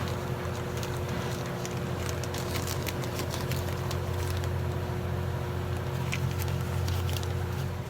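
Steady low mechanical hum with two steady higher tones in it and scattered light clicks, cutting off abruptly at the end.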